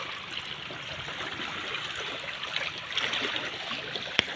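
Sea water lapping and splashing steadily, with one sharp click near the end.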